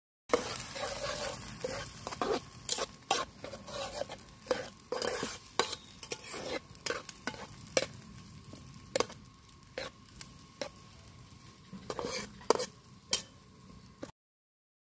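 Steel spatula scraping and tapping against a frying pan as scrambled egg is stirred, over a sizzle of frying that grows quieter in the second half.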